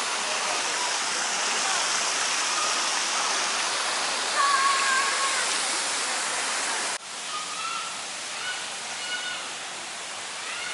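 Steady rushing of water with a few short, thin high tones over it. The rushing cuts off abruptly about seven seconds in, leaving a quieter background with more short tones.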